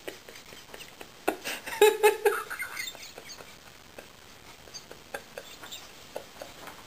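A man's suppressed, breathless laughter: a short burst of laughing about two seconds in, then thin, squeaky, wheezing sounds and scattered faint clicks as he struggles to stop.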